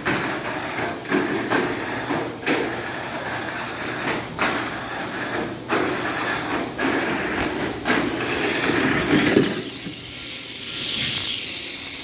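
Tamiya Mini 4WD Great Magnum R racing around a plastic Mini 4WD track: its small electric motor and gears run with a steady rattling whir, and sharp clacks sound every second or two as it knocks through the track sections. About ten seconds in the rattling gives way to a higher, steady hiss.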